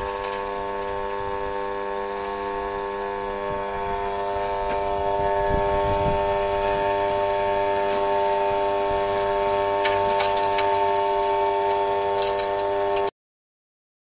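Forest Master FM4DDE electric wood chipper's 2800 W motor running with nothing being fed: a steady hum and whine. There are a few light rustles and clicks of wood chips being handled, and the sound cuts off suddenly about 13 seconds in.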